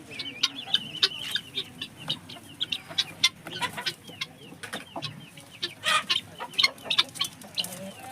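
A flock of chickens clucking and calling, many short sharp calls overlapping, with high chirping calls among them.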